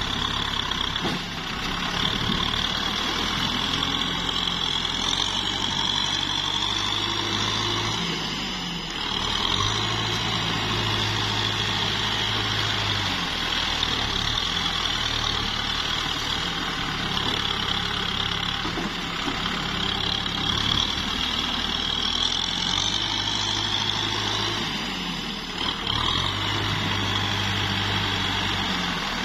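Kubota M6040SU tractor's diesel engine running steadily while pushing mud. Its note dips briefly and changes pitch about a third of the way in and again near the end.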